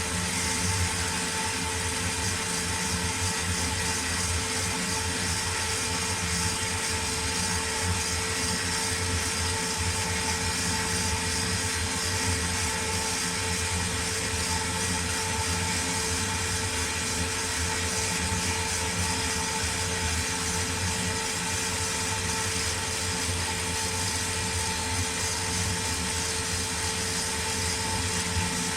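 Nakamura-Tome Super NTM3 CNC turning center running steadily through a machining program: a constant machine hum with a steady whine and hiss, unbroken throughout.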